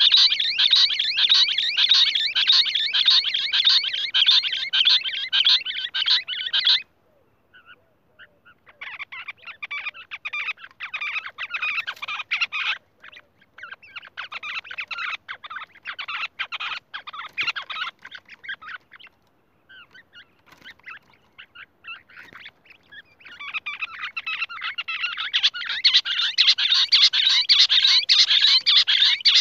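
Lahori quail calling in long runs of rapid, harsh pulsing notes. The run breaks off about seven seconds in and, after a short silence, resumes in patchier bursts. It thins out past the middle, then builds again to a full, loud run over the last several seconds.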